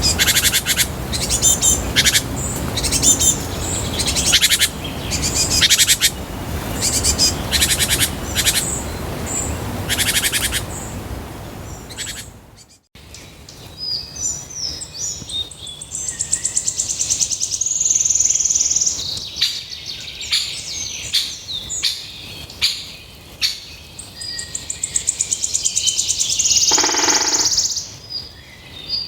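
Songbirds singing: first a bird repeating short, rapid trilled phrases about once a second over a noisy background, then, after a brief break about 13 seconds in, a different bird with varied chirps and long trills.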